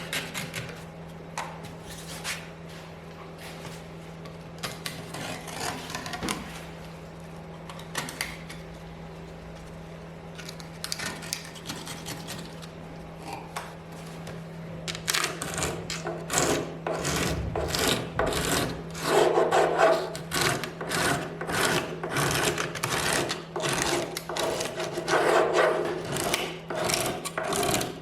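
Quick repeated rubbing or scraping strokes on wood, sparse and quiet at first, then louder and denser about halfway through, over a steady low hum.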